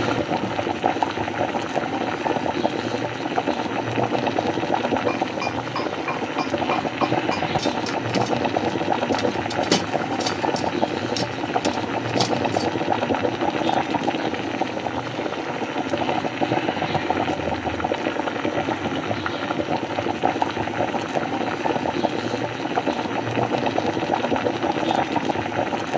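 A pot of liquid boiling steadily, bubbling without a break, with a few faint clicks about a third of the way in.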